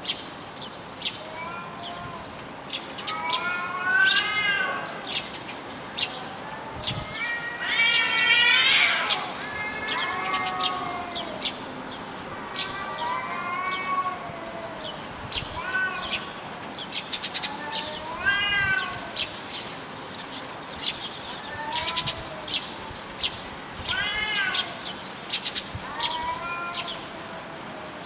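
Two cats yowling at each other in a territorial threat standoff: long, wavering, drawn-out yowls that rise and fall in pitch, about ten of them at intervals of a few seconds, the loudest about eight seconds in.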